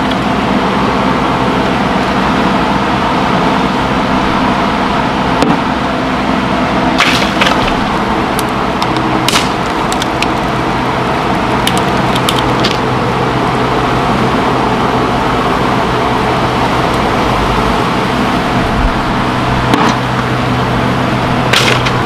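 Old wooden lapboard siding being pried off a shed wall with a flat pry bar: sharp cracks and snaps of the wood about seven seconds in, near nine and a half, around twelve and near the end, over a steady droning hum.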